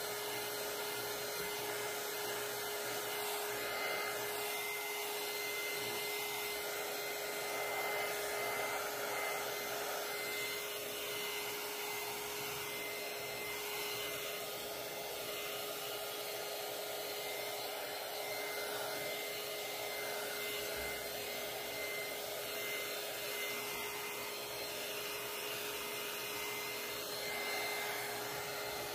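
Handheld heat gun running steadily: a constant blowing whir with a steady whine. It is heating vinyl wrap so the vinyl can be stretched around a cut hole.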